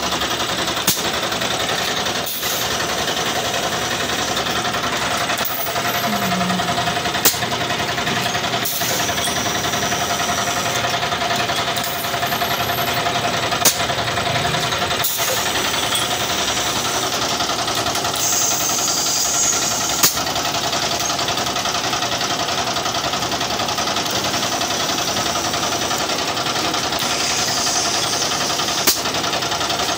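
Plastic moulding machine running with a steady mechanical clatter and hum. A sharp clack sounds every several seconds.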